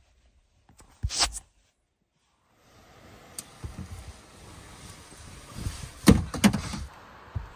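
A person climbing out through the rear window of a pickup truck canopy: rustling of bedding and clothing, with a few heavy thumps against the truck bed and canopy, the loudest about six seconds in. A short sharp sound comes about a second in.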